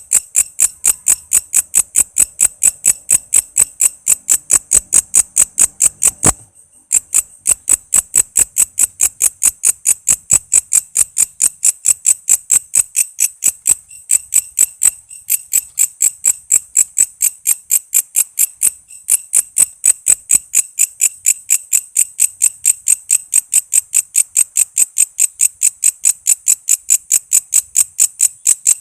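Walang kece insect calling: a loud, steady run of sharp, high chirps at about four a second, with a short pause about six seconds in and brief breaks near the middle.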